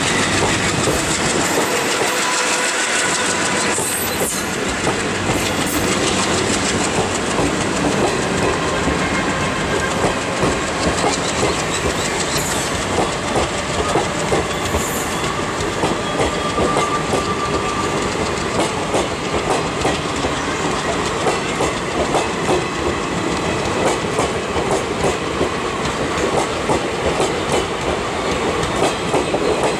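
Indian Railways passenger coaches rolling past close by as the express gathers speed, their wheels clattering over the rail joints in a repeated clickety-clack.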